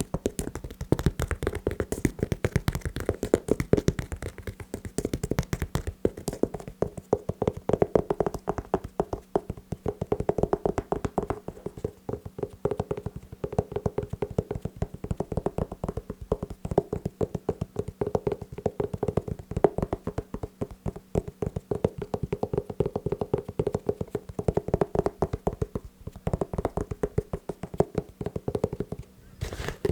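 Fast tapping on shoes: many quick, sharp taps a second, in flurries that keep going without a break.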